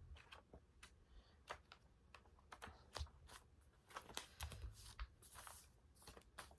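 Quiet paper handling: faint scattered clicks and soft rustles as planner pages are leafed through, with a few soft low thumps a little past the middle.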